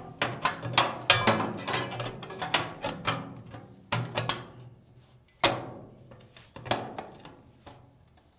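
Sheet-steel patch panel knocked and clattered against a Willys MB jeep tub's side step while it is fitted: a quick run of sharp metallic taps, then four single knocks about a second apart, each ringing briefly.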